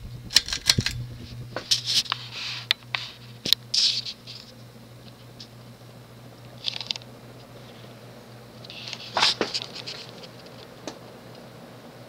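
Hunter Original oil-bath ceiling fan with its cast-iron motor, pulled up to high speed: clicks near the start as the chain is pulled, then a steady low motor whine as the fan comes up to speed. Scattered rustles and clicks come and go over it.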